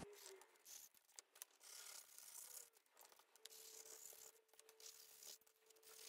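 Near silence, with faint dabbing and rubbing of a stippling brush pushing dry gesso through a plastic stencil onto paper.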